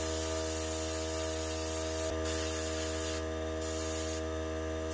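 Airbrush hissing as it sprays a white base coat onto a carved wooden lure, over a steady motor hum. The spray stops for a moment about two seconds in and cuts out twice more near the end.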